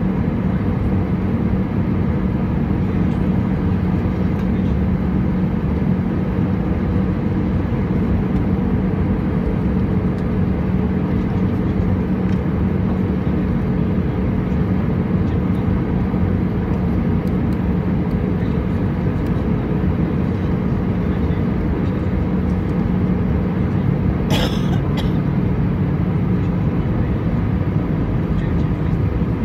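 Airbus A320 cabin noise on approach, heard from a window seat over the wing: a steady rush of engine and airflow noise with a steady low hum under it. A single brief knock about 24 seconds in.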